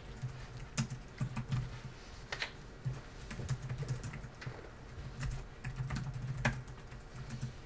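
Computer keyboard typing close to a desk microphone: irregular key clicks with dull thuds carried through the desk.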